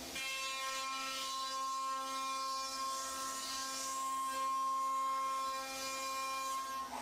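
CNC router spindle running at a steady whine while milling wood, with a shifting hiss of the cutter working the material.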